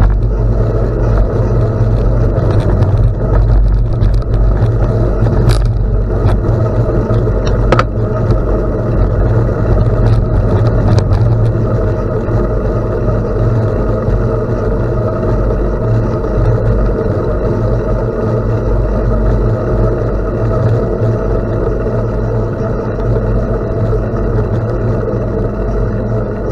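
Steady wind rush on the microphone and tyre rumble from a bicycle riding on a gravel road, with a few sharp ticks about five, eight and eleven seconds in.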